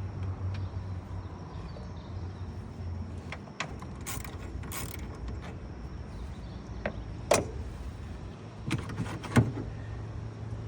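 Scattered clicks, knocks and two short scraping rustles of a plastic coolant reservoir being worked loose and lifted out of a truck's engine bay, with sharper knocks near the end. A steady low hum runs underneath.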